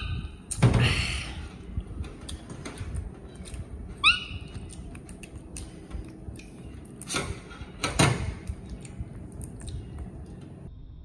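Baby macaque giving two short high squeaks about four seconds apart, among a few sharp knocks and clatters of glass and tableware on a steel table.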